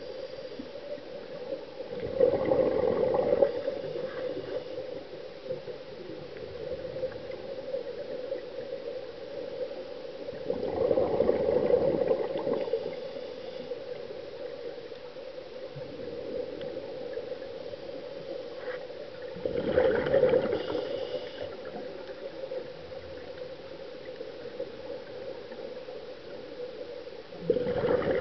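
Scuba diver's exhaled breath bubbling out of a regulator underwater: a rush of bubbles four times, about every eight seconds, over a steady hum.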